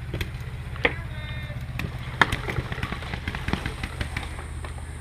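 Paintball markers firing on the field: sharp pops at uneven spacing, many faint and distant, two louder ones about one and two seconds in, over a steady low hum.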